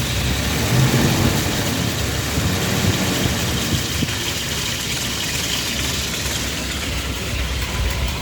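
Ford engine of a 6-volt Willys jeep running steadily at idle.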